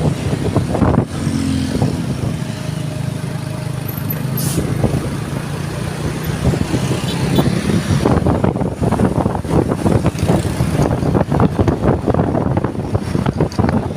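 A bus engine running with a steady low hum, with wind buffeting the microphone, heavier in the second half.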